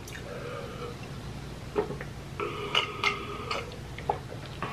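A person gulping water from a glass mug: a few soft swallowing clicks, spaced irregularly, mostly in the second half.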